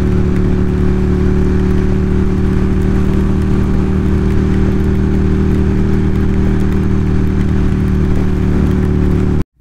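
Motorcycle engine running at a steady cruising speed, its pitch held constant, with wind rush over it; the sound cuts off abruptly near the end.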